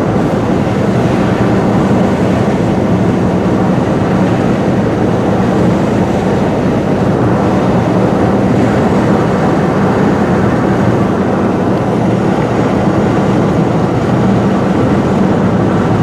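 Steady road and engine noise of a car driving, heard from inside the cabin, with a constant low drone.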